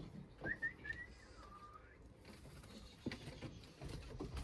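Pigeons stirring: a few short, high rising chirps about half a second in, followed by soft scattered pattering and scuffling.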